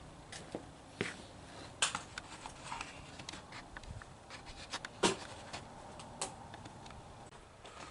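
Faint handling noise: scattered clicks and knocks over a low background hiss, the sharpest about two, five and six seconds in.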